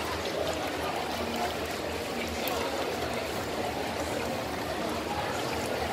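Teochew meat puffs deep-frying in a wok of hot oil: a steady sizzling and bubbling.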